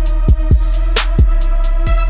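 Hip-hop instrumental music: deep kick drums that drop in pitch, quick steady hi-hats and a held synth chord.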